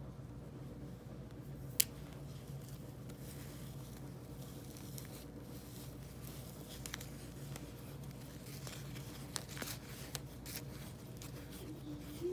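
Soft handling noises of red thread being pulled and worked by hand, with light rustles and small clicks, and one sharp click about two seconds in. A low steady hum runs underneath.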